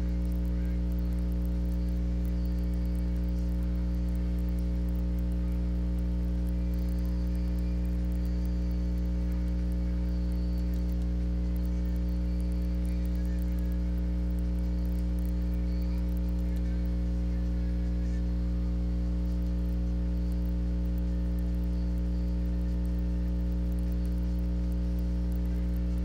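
Steady electrical mains hum with a low buzz, unchanging throughout.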